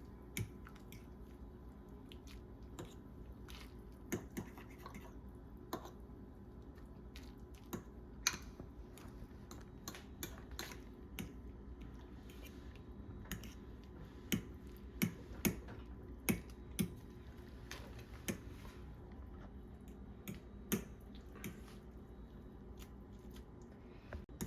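A utensil clicking and scraping against a microwave-safe bowl as cooked ramen noodles are broken up in their broth: irregular light taps, a few louder ones in the second half, over a faint steady hum.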